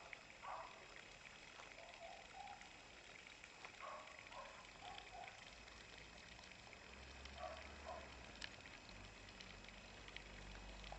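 Near silence: a faint hiss, with a few short, faint noises from two small dogs play-fighting, most of them in the first half and another pair near the end.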